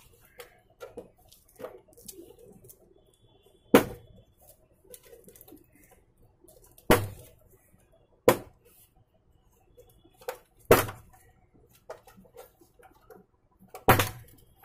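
Plastic case clips of a Zebster monitor snapping and clicking as the cabinet is pried open by hand. Five sharp clicks come a few seconds apart, with softer handling knocks of the plastic between them.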